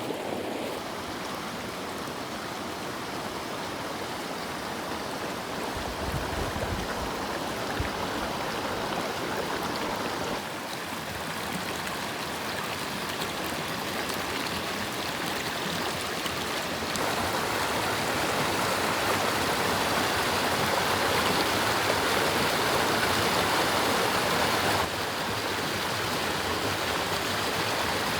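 Forest river's water rushing and splashing steadily, louder from a little past halfway through.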